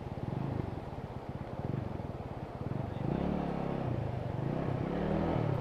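Motorcycle engine running at low speed with a fast, even firing pulse; from about three seconds in its pitch rises and falls in a few swells as the throttle is worked.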